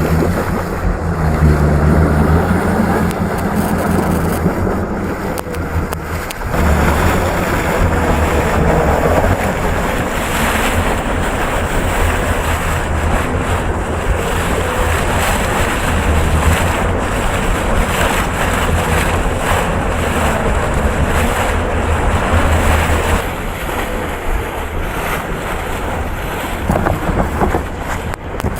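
Heavy earthmoving machine's diesel engine running steadily under load, with wind buffeting the microphone and a brief dip about six seconds in.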